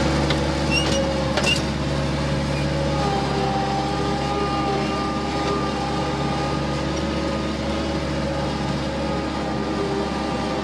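Bobcat 753 skid-steer loader's diesel engine running at a steady speed.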